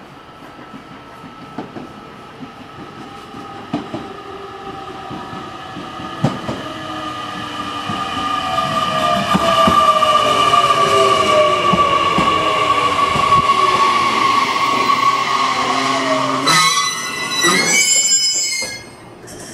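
JR Kyushu 817 series electric train pulling in and braking. Wheels click over rail joints as it nears, and the motor whine grows louder and falls in pitch as the train slows. A burst of high squealing about 16 seconds in as it comes to a stop.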